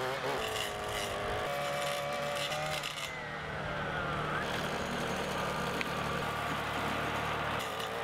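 Diesel engine of an orange Kubota compact tractor running under load as its front loader pushes through brush and small trees. The engine note rises and falls, with a whine that drops in pitch partway through.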